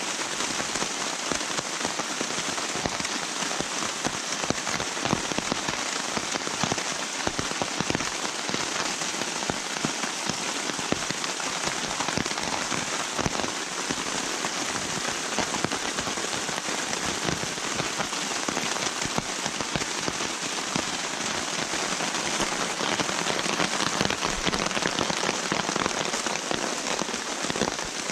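Heavy rain falling steadily on the forest and pattering on the tarp overhead, a dense, even hiss of countless drops.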